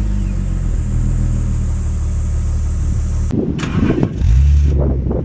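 BMW E46 inline-six engine idling through its exhaust just after start-up. About three seconds in it gives way to a second engine being cranked, which catches about four seconds in with a brief flare of revs and settles into idle.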